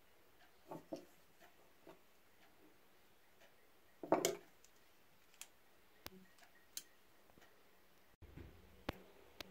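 Small clicks and taps of toy car parts being handled and set down on a cloth, with a short clatter about four seconds in and a sharp click near the end.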